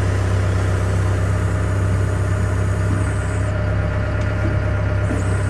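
Excavator's diesel engine running steadily with a low, even hum.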